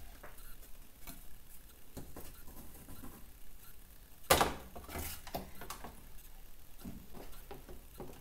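Scattered light clicks and knocks of a PCB and a plastic developer tray being handled, with one sharper knock about four seconds in.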